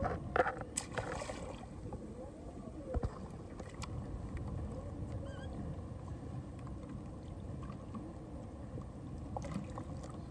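Water sloshing and lapping against a plastic fishing kayak's hull as a tarpon is held in the water alongside for release, with a few knocks in the first second and a half and one sharp knock about three seconds in.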